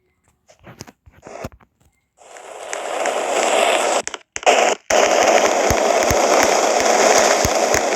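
Loud, dense crackling noise studded with sharp clicks. It starts about two seconds in after a few scattered clicks and breaks off twice for a moment near the middle.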